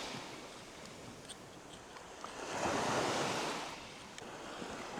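Small waves washing onto the shore, with one swell of surf rising about two and a half seconds in and fading about a second later.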